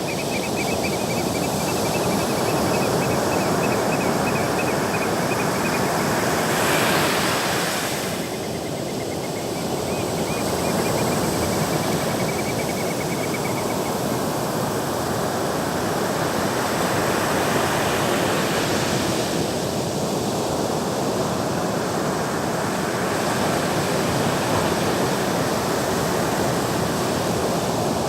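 Sea waves breaking and washing on the shore, a continuous surf noise that swells and eases, with one stronger wave breaking about seven seconds in. A faint high trill sounds over the surf during the first half.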